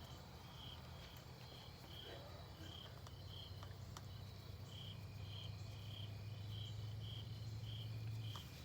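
A cricket chirping steadily, about two short high chirps a second. Under it is a faint low hum that swells past the middle and cuts off near the end.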